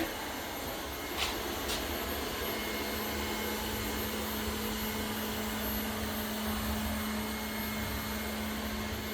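Lefant M201 robot vacuum running steadily with a constant hum, with two faint clicks a little over a second in.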